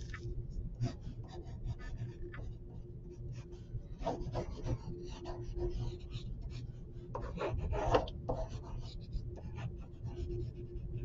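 Graphite pencil drawing on a sheet of paper: irregular scratchy strokes, with busier, louder bursts of strokes about four seconds in and again around seven to eight seconds in, over a faint steady hum.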